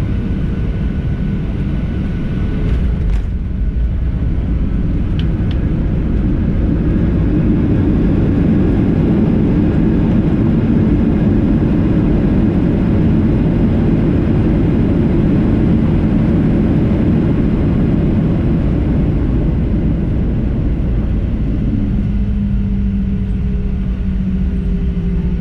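Boeing 737 jet engines in reverse thrust on the landing roll, a loud steady roar heard from the cabin that swells through the middle and eases near the end into a lower whine as the engines spool down. A few sharp knocks come about three seconds in.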